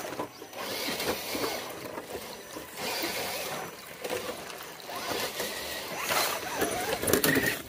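Water splashing and sloshing in uneven surges as a scale RC crawler's tires churn through a shallow creek over wet rock.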